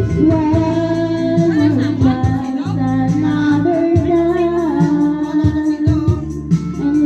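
Background music: a song with a sung melody over a steady low accompaniment.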